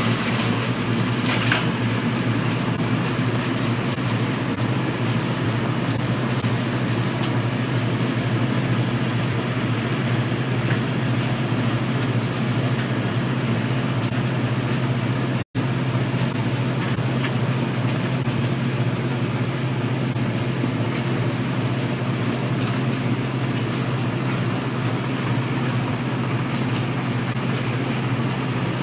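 Pulcinelli Orvirotor grape harvester running steadily, a constant mechanical drone that breaks off for an instant about halfway through.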